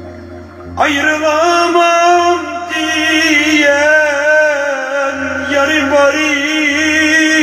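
A man singing an uzun hava, a free-rhythm Turkish folk song, in long held notes with a wavering, ornamented pitch. His voice comes in about a second in, over the fading notes of a plucked bağlama.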